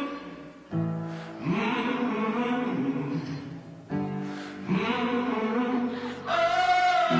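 Song intro: a choir-like chant of long sung notes over a low drone, three phrases about three seconds apart, the last ending on a sudden higher held note.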